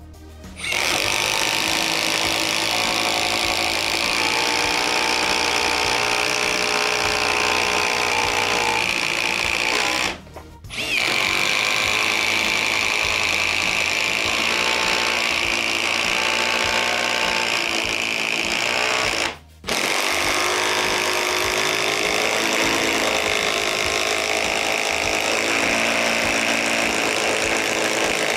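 Cordless impact driver hammering steadily as it drives screws under load, in three long runs of about nine to ten seconds each with brief stops between them.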